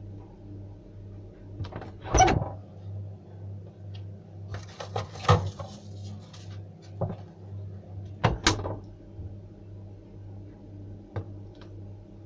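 Things being handled in a refrigerator: a series of sharp knocks and clatters and a couple of seconds of rustling in the middle, over a steady low hum. The loudest knocks come about two seconds in and as a quick pair past the middle, with two faint clicks near the end.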